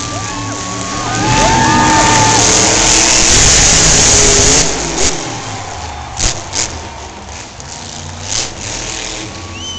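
Grave Digger monster truck's engine revving loudly as the truck passes close by, then falling away. A few short, sharp bangs follow in the second half.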